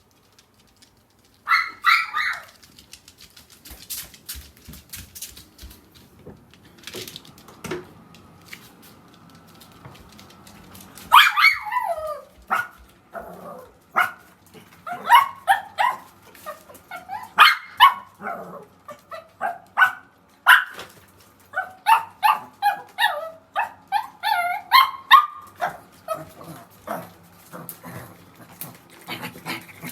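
Small dogs barking, answered by a drawn-out howl; short sharp barks come thick and fast through the second half, mixed with wavering howling calls.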